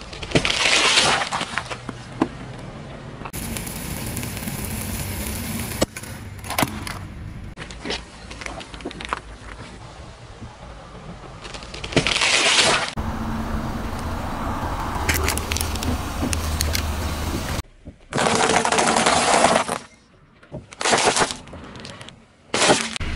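Objects cracking and crunching under a car tyre in several separate loud bursts, with quieter stretches of low rumble between them.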